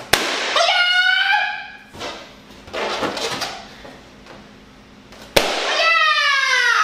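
Sharp smacks of a kitchen knife swung against an inflated rubber balloon, at the start and again about five seconds in, each followed by a loud wordless yell; the second yell falls in pitch. A softer knock comes about two seconds in.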